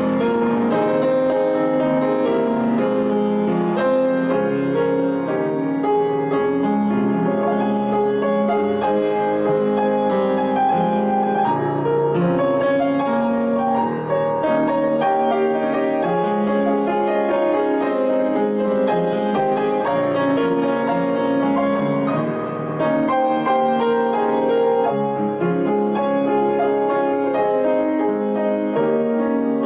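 Piano playing a postlude: a continuous flow of chords and melody notes at an even level.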